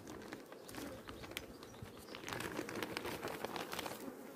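Plastic hive-cover film and a cloth crinkling and rustling as they are lifted off the top bars of a beehive frame box, with many small crackles in the middle. A low steady hum of honeybees lies underneath.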